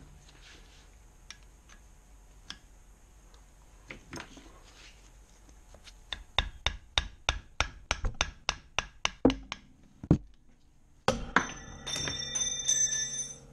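A wooden mallet striking metal in a quick run of about fifteen sharp knocks, about four a second, for some four seconds. Near the end comes a clatter of metal with ringing tones.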